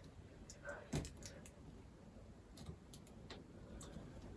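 Faint, scattered small clicks and taps of laptop internals being handled: a few sharp ticks, a cluster about a second in and several more spread later.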